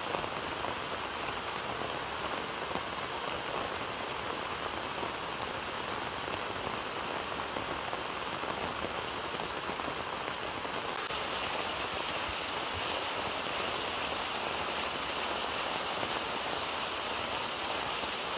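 Heavy rain pouring, with rainwater rushing down stone steps in a steady dense hiss. The sound gets slightly louder and brighter about eleven seconds in.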